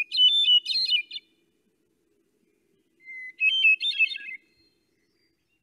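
Recording of a hermit thrush singing two song phrases. Each opens on a held whistle and breaks into quick, fluty, echo-like notes at higher pitches, and the second phrase starts lower than the first.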